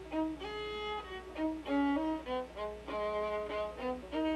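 Background music: a melody on bowed strings, notes changing every half second or so.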